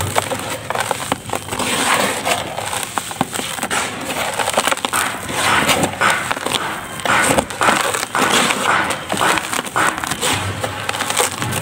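Dried mud chunks crumbled between the fingers, crunching and crackling continuously as the grit and powder pour down into a tub.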